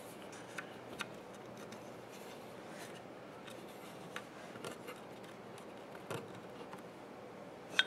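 Light, scattered clicks and knocks of small wooden spacers and spindles being fitted by hand into a glued groove in a wooden rail, with a sharper click near the end, over quiet workshop room tone.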